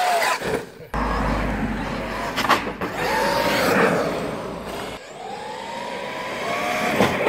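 Traxxas X-Maxx RC monster truck's brushless electric motor whining, its pitch rising and falling as it speeds up and slows, then climbing steadily near the end, over a steady rushing noise.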